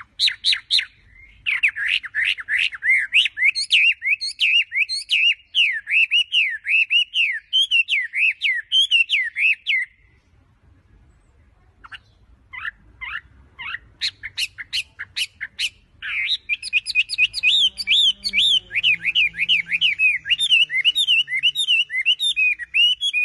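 Wambi songbird singing in long, rapid runs of high whistled notes. The song breaks off about ten seconds in, gives a few separate notes, then starts again in another long run.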